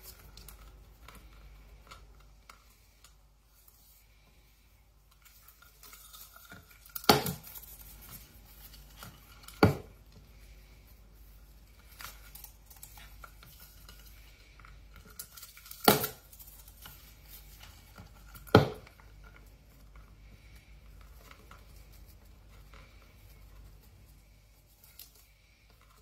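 A conure working a wooden puzzle toy: light scratching and tapping of beak and feet on wood, with four sharp wooden knocks in two pairs, each pair about two and a half seconds apart.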